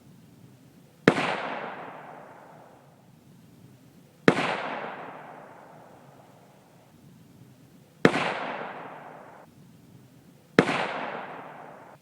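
Four rifle shots from a Savage Axis bolt-action rifle in .22-250 Remington, spaced about three seconds apart. Each shot is a sharp crack followed by a long fading echo.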